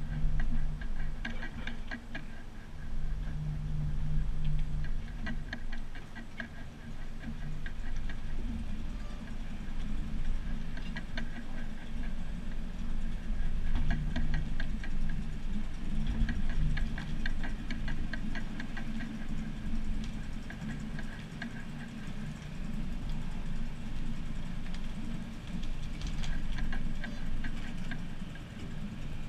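Low, steady rumble of a Dodge pickup's engine towing a personal-watercraft trailer at crawling speed. Bursts of rapid clicking rattle come and go as the trailer rolls over the rough ground.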